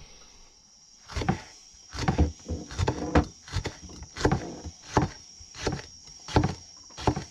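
Chef's knife slicing a jalapeño on a wooden cutting board: a steady series of knocks, roughly one every two-thirds of a second, starting about a second in.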